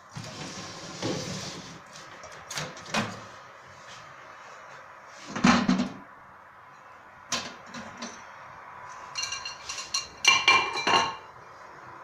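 A microwave oven being handled during cleaning: knocks and rubs against its cabinet and door, with one heavy knock about halfway. Near the end its glass turntable plate is lifted out and clinks against the oven in several short, ringing strokes.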